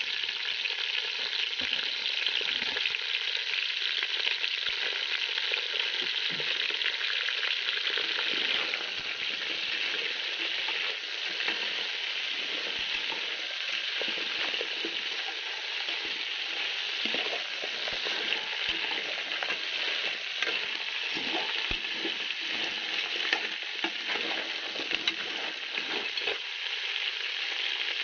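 Blue swimming crabs sizzling as they cook in a pot: a steady hiss with scattered crackles and pops, which come more often through the second half.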